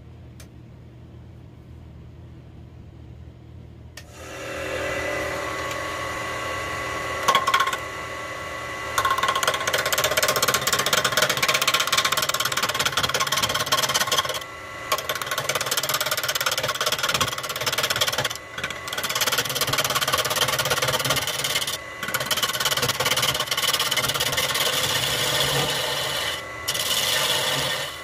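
Wood lathe spinning a maple burl vase while a gouge cuts the wood: a loud, rasping scrape with a steady whine under it, broken by a few brief pauses where the tool lifts off. Only a low hum for the first few seconds; the sound grows about four seconds in and the full cutting starts about nine seconds in.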